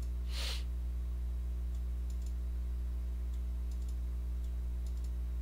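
Steady low electrical hum picked up by the desk microphone, with a short breath about half a second in and faint scattered clicks afterwards.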